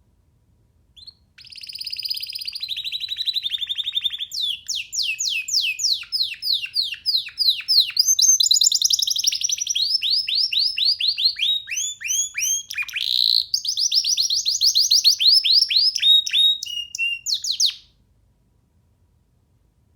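A young domestic canary singing one long song of rapid trills, each phrase a fast run of repeated down-sweeping notes that changes speed and pitch from phrase to phrase. The song starts about a second in and stops abruptly near the end.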